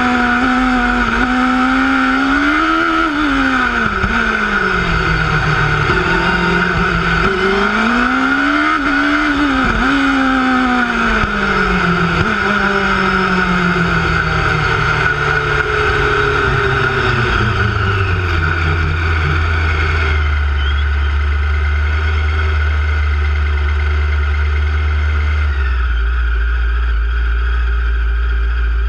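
Onboard sound of a single-seater formula racing car's engine, revving up and dropping off again and again through tight chicanes. About two-thirds in, it eases off and settles to a steady low idle. A steady high whine runs underneath.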